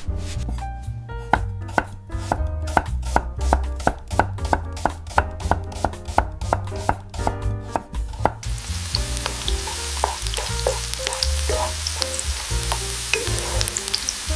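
A kitchen knife chopping food on a cutting board in a steady rhythm of about three strokes a second. About eight seconds in, the chopping stops and a steady hiss with scattered crackles takes over.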